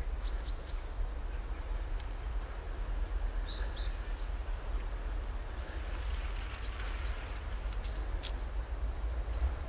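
Outdoor ambience: a steady low rumble and hiss, with faint high bird chirps in short runs near the start, about a third of the way through and again past two-thirds through.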